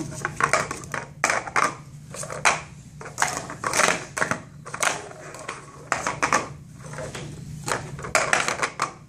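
Blue Speed Stacks plastic sport-stacking cups clacking against each other and the tabletop as they are rapidly up-stacked and down-stacked through the cycle, in quick runs of sharp clicks with brief pauses between pyramids.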